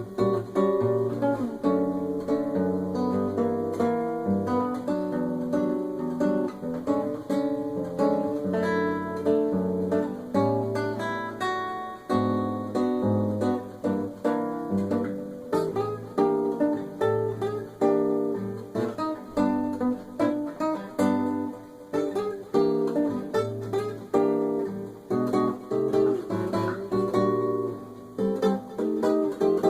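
Solo classical acoustic guitar played fingerstyle: a bossa nova samba with plucked bass notes under syncopated chords and melody.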